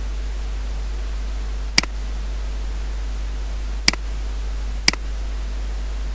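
Three sharp computer mouse clicks, the first about two seconds in and the other two about a second apart near the end, over a steady hiss and low electrical hum.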